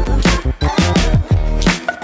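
Background music with a steady beat: hip-hop/R&B-style track with bass and kick drum.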